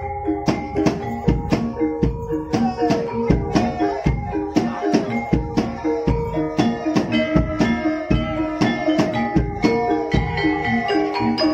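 Javanese gamelan music accompanying an ebeg dance: a drum beating steadily about twice a second over repeating struck metallophone or xylophone tones.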